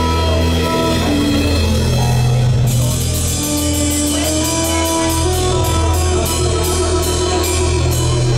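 Live progressive rock band playing an instrumental passage, with flute, keyboard, bass and drums: held notes over a heavy bass line. Steady cymbal strokes, about three a second, come in about a third of the way through.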